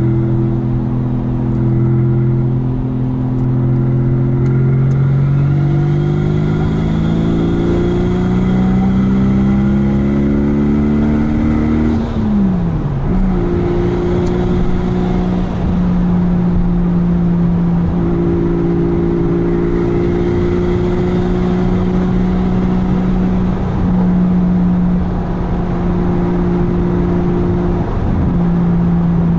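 Turbocharged Toyota 2JZ straight-six engine in a Mazda RX-8, heard from inside the cabin with road and tyre noise. The engine note climbs steadily under acceleration for about twelve seconds, drops sharply at a gear change, then holds steady at cruising speed.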